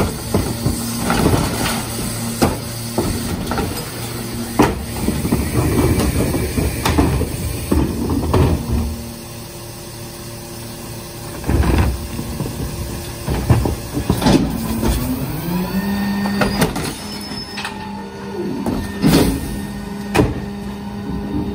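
A New Way rear-loader recycling truck idles while plastic recycling carts are tipped into its hopper, with repeated knocks and bangs of the carts and falling recyclables. About fifteen seconds in, the engine note rises and holds higher as the hydraulic packer cycles to compact the load.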